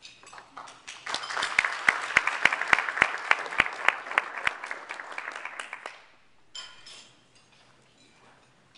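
Audience applauding, with one person clapping loudly and sharply close by at about three claps a second; the applause starts about a second in and dies away about six seconds in.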